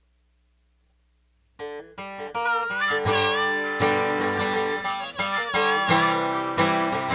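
Near silence, then about a second and a half in, a country song's instrumental intro begins: acoustic guitar with harmonica playing bending notes over it.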